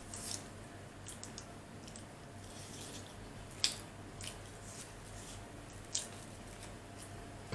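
Chicken nuggets being eaten: scattered wet mouth smacks and clicks while chewing, the sharpest about halfway through and another near the end.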